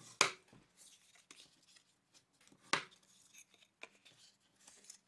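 Bone folder burnishing folds along the score lines of cardstock: two quick scraping swipes about two and a half seconds apart, with faint paper rustling between.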